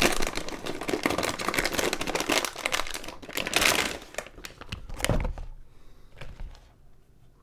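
Anti-static plastic bag crinkling and rustling as it is handled and a small metal-cased board is slid out of it, fading away about five seconds in.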